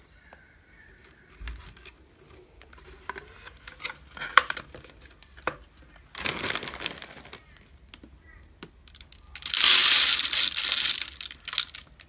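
Sunflower seeds poured from a plastic bag into a plastic-bottle bird feeder: the bag crinkling and scattered clicks of handling, then seeds rattling into the bottle in two pours, a short one about six seconds in and a longer, louder one near the end.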